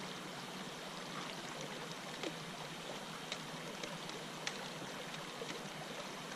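Creek water running steadily over rocks, with a few short sharp clicks scattered through it.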